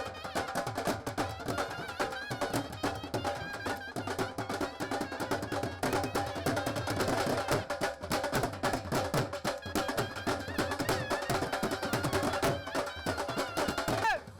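Music with fast, dense drum strikes under a wavering melody line, cutting off abruptly near the end.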